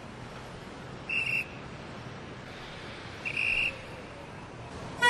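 Two short high-pitched whistle-like tones, about two seconds apart, over a faint steady hiss.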